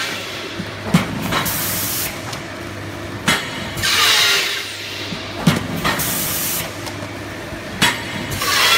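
TQC-750 corn starch food box forming machine running through its cycles: a sharp knock, then a short hiss, repeating about every two seconds over a steady low hum.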